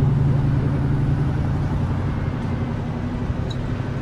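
Motor-vehicle engines idling in stopped traffic, a steady low hum that slowly gets quieter.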